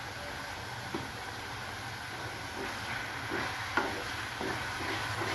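A tomato-onion masala sizzles steadily in a metal kadhai. From about three seconds in, a wooden spoon stirs it, giving a run of short scrapes and knocks against the pan.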